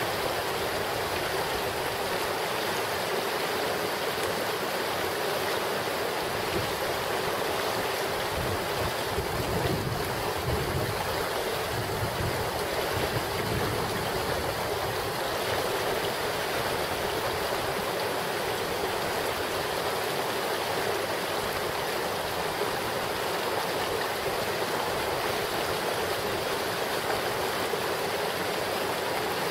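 Steady rush of a mountain creek flowing over rocks.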